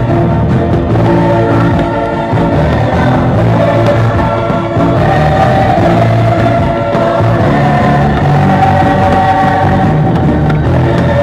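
Choral music playing loudly and steadily, with many voices singing sustained notes over instruments.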